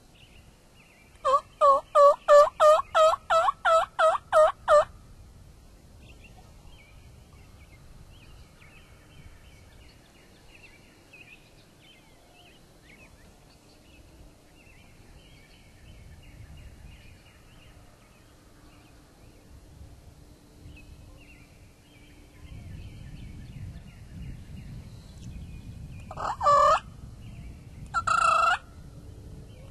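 Wild turkey calls: about a second in, a run of about a dozen evenly spaced, loud yelping notes lasting some three and a half seconds, then near the end two short gobbles a couple of seconds apart. Faint songbird chirps are heard in between.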